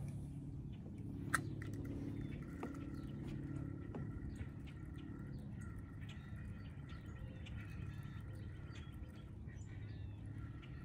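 Outdoor pond ambience: birds calling over a steady low hum, with scattered faint ticks and one sharp click about a second in.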